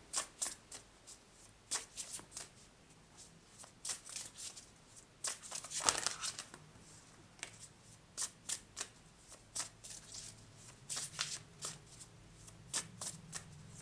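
Hand shuffling of a deck of oracle cards: a run of short, irregular card riffles and taps, loudest about six seconds in.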